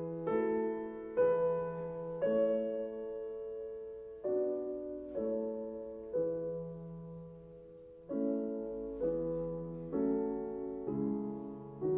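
Solo grand piano playing slow, soft chords about a second apart, mostly in groups of three with short pauses between groups, each chord left ringing and fading.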